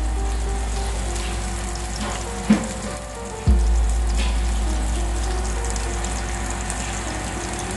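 Food sizzling as it fries in a pan, browning, with background music playing over it.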